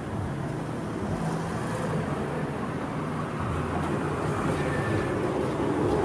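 Road traffic: cars driving past close by, a steady mix of engine and tyre noise that grows a little louder toward the end.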